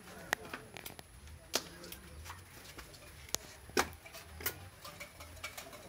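Scattered sharp metallic clicks and knocks as hands and tools work at a bicycle's front wheel and fork, about five in all, the loudest a little past halfway.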